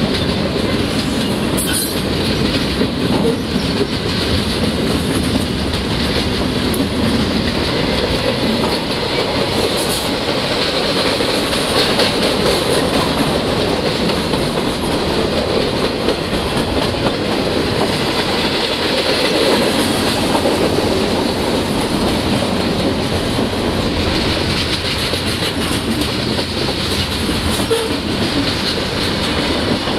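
CSX mixed freight train's cars rolling past at close range, a steady loud rumble and clatter of steel wheels on the rails as the train brakes.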